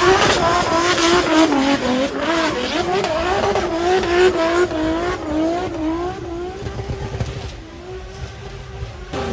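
BMW M2-bodied drift car's engine revving up and down about twice a second as it drifts, over the hiss of spinning tyres. Near the end the revs settle lower and quieter.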